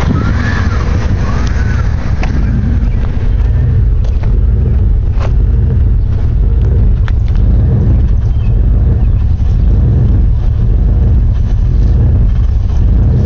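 Jeep Grand Cherokee 5.9-litre V8 engine idling roughly, a loud steady low running with a few sharp ticks.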